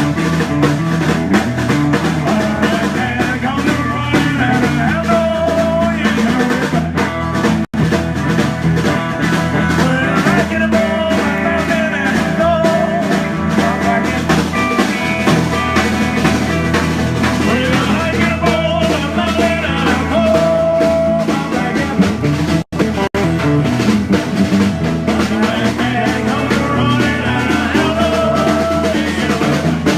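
Live rock-and-roll band playing with a drum kit, loud and steady, dropping out for an instant twice.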